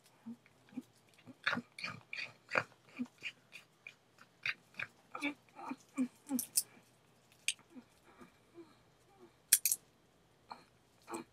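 Fox squirrel gnawing and chewing a nut: an irregular run of small sharp crunches and clicks, several a second, with one louder crack about nine and a half seconds in.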